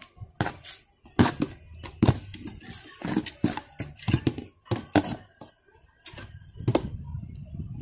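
Small hand garden fork scraping and stirring through loose sieved soil mixed with compost in a plastic tub: more than a dozen irregular scratchy strokes and clicks, with a short pause a little before six seconds in.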